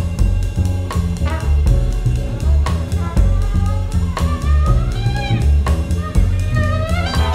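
Instrumental music: a trumpet-led melody over a steady drum and bass beat, with the horn line gliding up and down in pitch.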